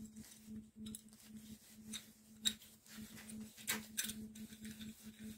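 Faint metal clicks and taps of a small homemade steel clamp being assembled by hand: the threaded screw turned through the clamp body and a bent-nail handle knocking against the steel, the loudest tap about two and a half seconds in. A low hum runs underneath.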